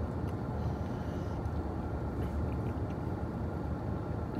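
Steady low rumble inside a car's cabin, even throughout with no distinct knocks or changes.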